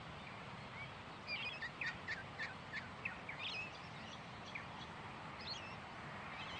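Birds chirping in short, quick calls, busiest in the first few seconds and sparser after, over a steady background hiss.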